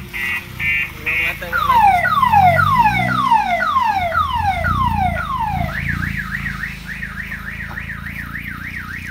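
Car-mounted electronic siren cycling through its tones: quick beeps for about a second, then repeated falling whoops about two a second, then a fast high-low warble from about six seconds in. Car engines rumble underneath as vehicles roll slowly past.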